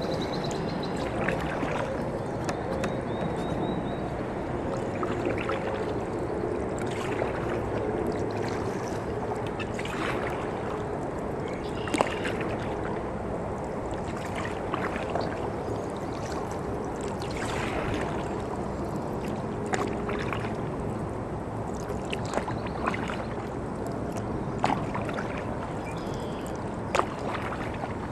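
Sea kayak paddling: steady splashing and trickling of water around the hull and paddle blades, with sharp light knocks or splashes every couple of seconds, one louder near the middle.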